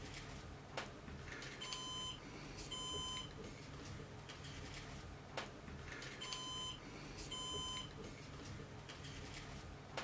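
Synology DS1815+ NAS alarm beeping in pairs of short high beeps, the pair repeating about every five seconds: the warning that a hard disk has been removed from the array. A couple of sharp clicks sound between the beeps.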